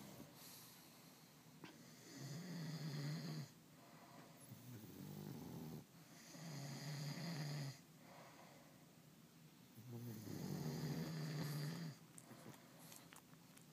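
Two sleepers, a pug among them, snoring in turn: a loud drawn-out snore about every four seconds, with lower, softer snores in between.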